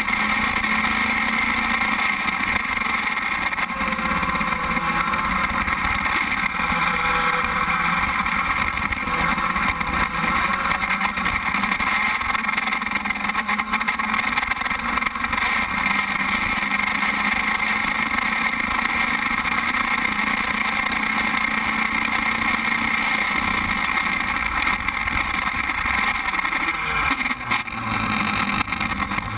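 Open-wheel formula race car's engine idling steadily with the car standing still. Its note dips and shifts near the end.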